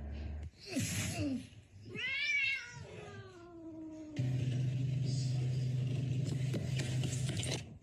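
A cat meows: one long drawn-out call about two seconds in, rising and then sliding down, after a short breathy sound. From about four seconds on, a steady low hum with hiss.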